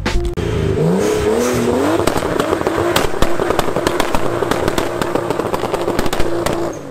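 Nissan 240SX (S14) engine revving hard in a smoky burnout: the pitch climbs over the first couple of seconds, then holds high and steady with rapid crackling pops from the exhaust, tires spinning on the pavement.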